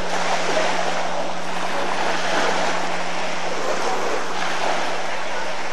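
Small waves washing against the shore, a steady rushing noise, with a steady low hum underneath.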